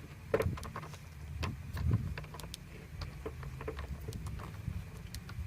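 A skate tool and skateboard truck being handled: scattered light clicks and knocks over a low, steady rumble.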